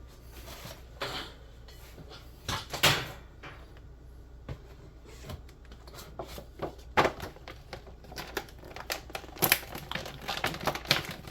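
Action figure packaging being opened by hand: cardboard and plastic clicking, tapping and rustling in an irregular string. A few knocks come early, then they grow dense about halfway through.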